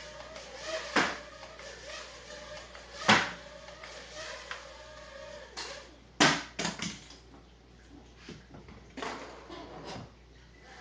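Mini quadcopter's tiny motors whining faintly under a string of sharp knocks and clatters as the little drone bumps into things and hits the floor. There is a quick cluster of knocks about six seconds in, and the whine fades out after the first few seconds.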